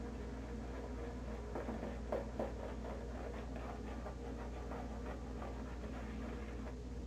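Silvertip shaving brush working lather on the face: a rapid run of soft, wet swishing strokes, a couple of louder ones about two seconds in, stopping just before the end.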